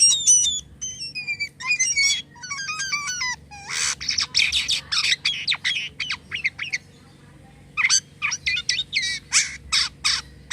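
Jalak kapas starling singing vigorously: a fast, varied run of whistles, gliding notes, chatters and harsh rasping calls, pausing briefly about two-thirds of the way through before more harsh calls.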